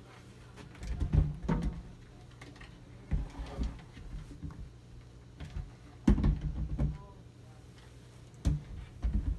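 Ashdown bass amp head and 10-inch speaker cabinet being lifted and shifted by hand: a series of dull thumps and knocks as the cabinets bump against each other, over a low steady hum.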